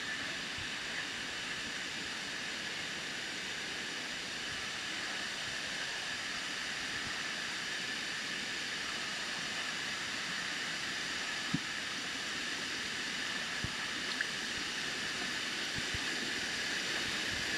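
Steady rush of a shallow river running over rock cascades, with a few short knocks in the second half.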